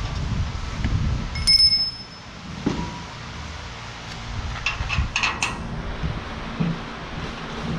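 A small steel part or tool on the loader frame gives one bright metallic ping that rings briefly, about a second and a half in. A few light metal clicks follow near the middle, over a steady low rumble of shop noise.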